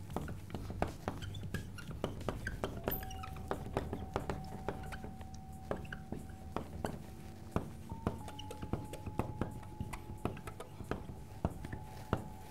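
Marker pen writing on a whiteboard: many small taps and scratches, irregularly spaced, as letters are written.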